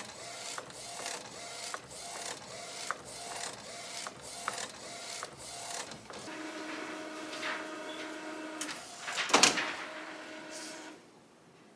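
Epson SureColor P800 inkjet printer printing: the print-head carriage shuttles back and forth with a click and short whir about twice a second. A steady motor hum follows for a couple of seconds, then a brief louder mechanical burst, and the printer falls quiet shortly before the end.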